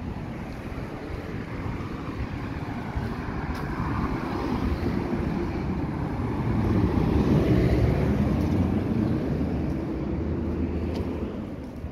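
Street traffic: a motor vehicle's engine and tyre noise swell to a peak about seven seconds in and fade again as it passes.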